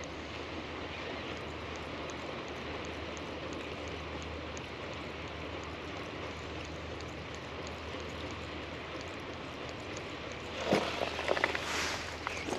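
Steady, even hiss of waterside outdoor ambience with faint regular ticking. A short cluster of louder clicks and rustling comes near the end.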